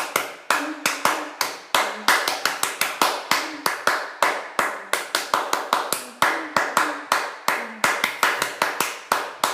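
One person clapping hands in a fast, uneven rhythm, about four claps a second with occasional short gaps.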